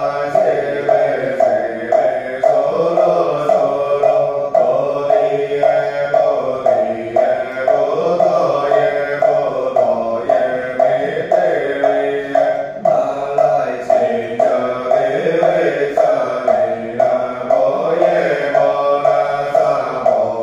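Buddhist liturgical chanting set to a steady, even beat of a wooden fish (muyu) drum.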